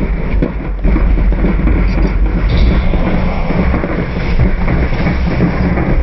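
Loud, dense noise from football stadium stands, a crowd and a marching band together, heaviest in a low rumble, with a few short knocks near the start.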